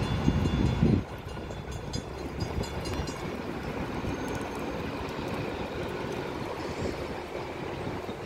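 Distant DART light rail train running on the tracks, heard as a steady rumble. A louder low rumble in the first second stops abruptly.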